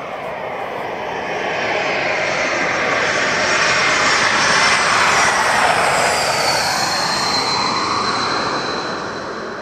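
Twin-engine jet airliner passing on landing approach: the jet engine noise swells to a peak about halfway through and then fades, with a high engine whine falling in pitch as it goes past.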